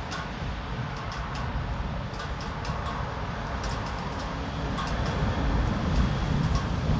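Rain falling, with scattered sharp drip taps and a low rolling rumble of distant thunder that swells over the last few seconds.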